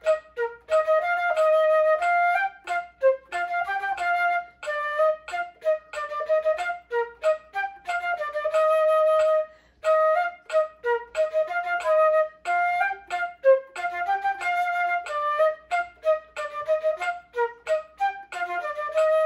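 Silver concert flute playing a fast practice exercise of short, detached staccato notes, double-tongued, with a few longer held notes and a brief pause a little after halfway.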